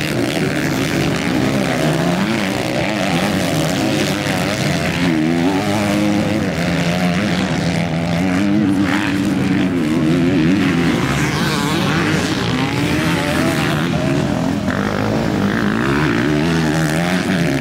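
Several motocross bikes' engines revving up and down as they race, their pitches rising and falling and overlapping without a break.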